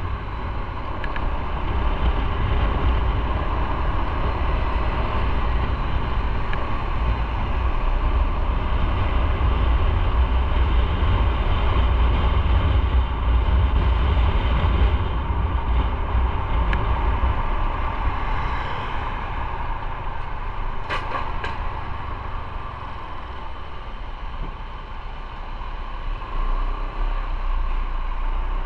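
Motorcycle riding through city traffic, running steadily with a heavy low rumble, easing off somewhat past the middle and picking up again near the end. A couple of brief sharp clicks about two-thirds of the way through.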